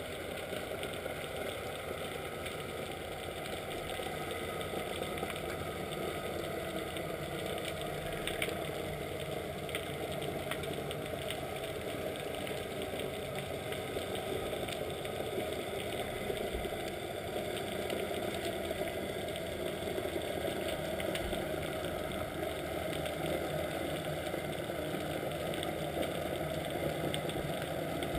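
Sightseeing boat's engine heard underwater: a steady engine drone and hum that slowly grows louder.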